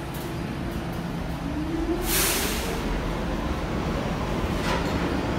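Subway train running with a steady low rumble; about a second and a half in its motors begin a whine that rises in pitch, as when a train gathers speed. A loud burst of hiss comes about two seconds in, with a shorter one near the end.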